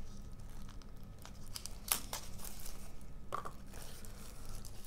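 Thin plastic protective sleeve crinkling and rustling as a smartphone is handled and slid out of it, with scattered light clicks and a sharper click about two seconds in.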